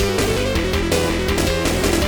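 Video game background music with a steady beat.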